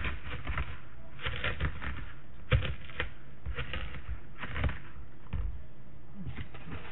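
Dry thyme leaves rustling and crackling in irregular bursts as they are handled and crumbled over a plastic bowl, with a few sharp knocks against the bowl, the loudest about two and a half seconds in.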